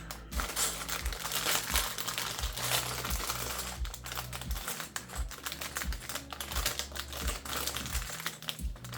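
Small plastic LEGO pieces clicking and clattering against each other as they are handled and pressed together, a quick, irregular run of many clicks.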